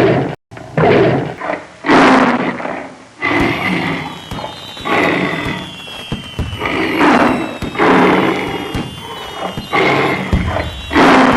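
Tiger roar sound effects: a string of loud roars and growls, one every second or so, with thuds between them. From about three seconds in, a high tone slowly falls in pitch behind them.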